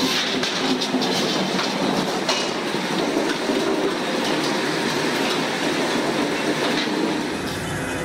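Sawmill circular headsaw and log carriage running, the big blade cutting through a log with a steady noise and constant rattling clatter. About seven seconds in, it changes to a different machine noise with more low rumble.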